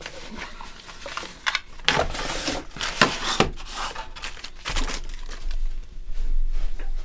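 A cloth carrying pouch, then a paper booklet, being handled: a series of short rustles and crinkles with a few soft knocks.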